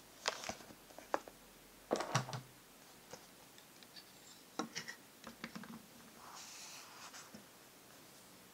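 Light clicks and knocks of a fountain pen and its presentation box being handled on a desk, the pen set down on a paper pad and picked up again. The loudest knocks come about two seconds in, with a soft rustle a little later.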